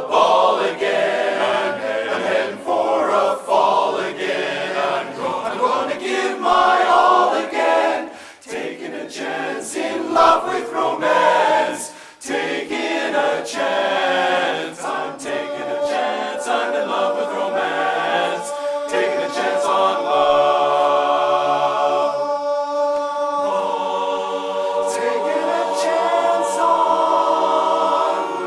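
Men's barbershop chorus singing a cappella in close harmony, with longer held chords in the second half.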